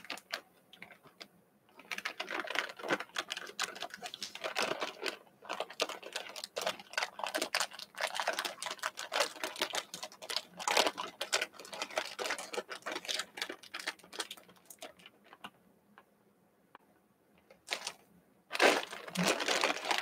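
Jelly beans clicking and rattling against each other as fingers pick through them: a dense run of small sharp clicks for much of the time, thinning to a few scattered clicks, then a short louder burst of clicking just before the end.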